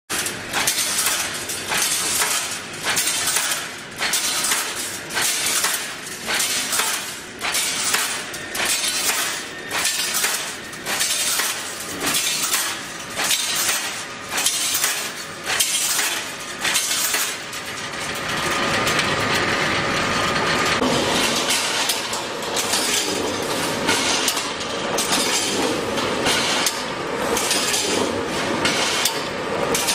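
Double-hopper welded wire mesh machine running: steady rhythmic metallic clanking, about one and a half strokes a second, as it cycles through its welds. After about 18 seconds the clatter runs together into a denser, more continuous rattle.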